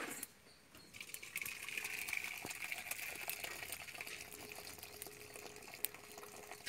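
Thin cooking liquid from cooked vegetables and dal pouring in a steady stream from one metal pot into another, a splashing hiss that starts about a second in.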